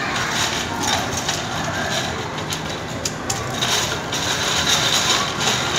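Plastic magnetic tiles and building pieces clattering and rattling as a toddler's hands rummage through a bin of them, over a steady background din.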